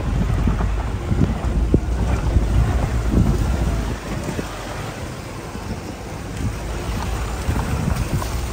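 Wind buffeting the microphone over the low rumble and uneven jolts of a vehicle driving on a rough, rocky dirt road.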